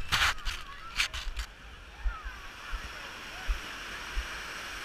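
Small waves washing up on a sandy beach with a background of distant crowd voices and children's shouts. In the first second and a half, a few sharp knocks and rubs come from the action-camera housing being handled.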